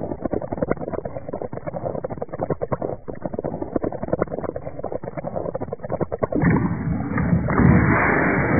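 Lava sound effects from an animation installation's soundtrack: dense, rapid crackling and popping. About six and a half seconds in it turns into a louder, denser rushing noise.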